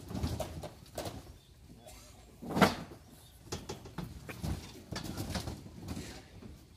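Knocks and thuds of loudspeaker cabinets being handled on a stage, with one loud thump about two and a half seconds in; a bird coos in the background.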